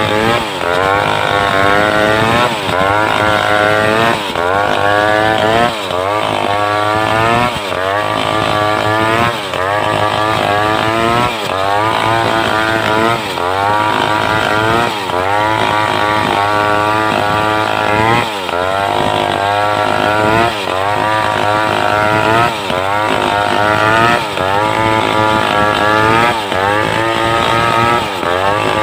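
Home-built two-stroke chainsaw cutting lengthwise through a mindi log at high revs, its engine pitch repeatedly dipping and climbing back about every second and a half as the chain loads up in the cut.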